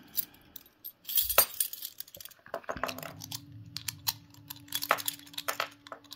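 Light metallic clicking and clinking of homemade picking tools being worked into a Fire Brigade FB14 padlock, a string of irregular sharp ticks with a louder clatter about a second in.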